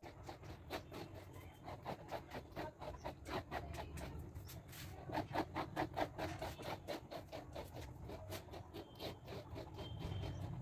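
Comb strokes rasping through a Great Dane's short coat, brushed against the grain of the hair in quick, repeated scratchy strokes.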